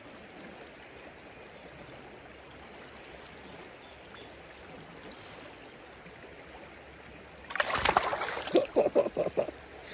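Steady flow of river current, then near the end a burst of loud splashing for about two seconds, several quick splashes in a row, as a smallmouth bass is released back into the water.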